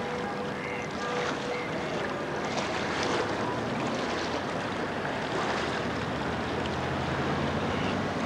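Steady wash of wind and rippling lake water on a camcorder microphone, with a faint low hum coming in about halfway through.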